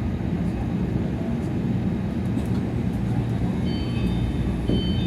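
Steady low rumble of a Tama Monorail car, heard from inside the cabin, with a few faint short high tones near the end.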